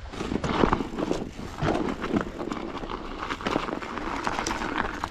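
Mountain bike on a snowy trail: irregular crunching, clicking and rattling over a steady rush of noise.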